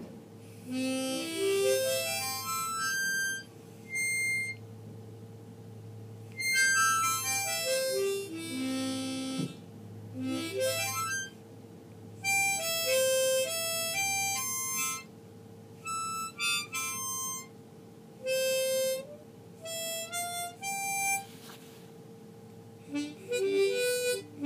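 Hohner Special 20 Marine Band diatonic harmonica in C played one hole at a time, single notes stepping up and down through the holes in several short runs with pauses between them.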